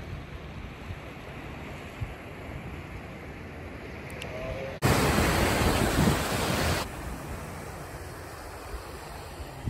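Small waves washing on open bay water, with wind on the microphone. About five seconds in, a much louder rush of wind noise starts abruptly, lasts about two seconds and stops just as suddenly.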